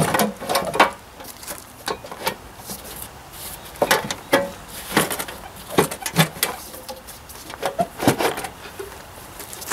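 Irregular knocks, clunks and light scrapes as a John Deere 2032R's fuel tank is worked by hand past the bars and clips of the tractor's frame. There are about a dozen sharp bumps, with no steady sound between them.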